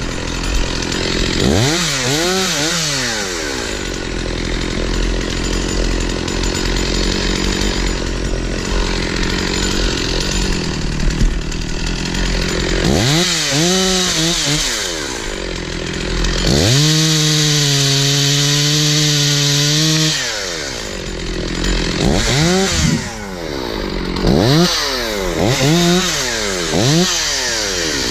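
Stihl 046 two-stroke chainsaw cutting wood under load, revved up and down several times between stretches of cutting. About two-thirds of the way through it is held at high revs for about three seconds.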